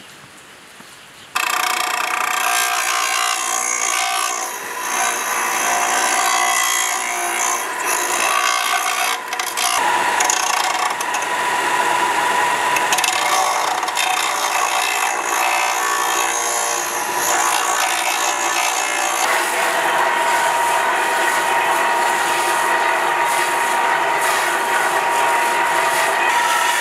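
Ryobi belt and disc sander running, with dry Osage orange wood grinding against the abrasive as a walking-stick blank is shaped. It starts abruptly about a second in and then runs steadily.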